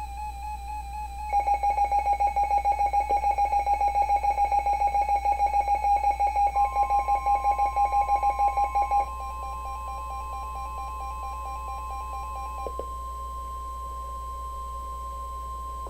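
Emergency Alert System alert tones for a tornado warning. A warbling electronic tone gives way to a fast run of pulsed beeps, and partway through a steady single-pitched attention tone comes in. That tone holds on alone after the beeping stops, the signal that the warning message is about to be read.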